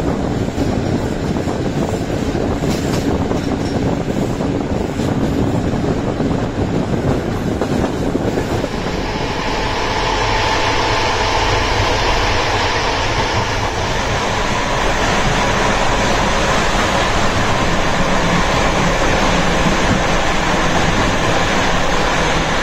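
Bo-type passenger coach running along the line: steady rumble of wheels on rail with rushing air. The noise grows louder and harsher about eight seconds in, as it is heard from the end vestibule by the coupling, and a faint whine comes through briefly in the middle.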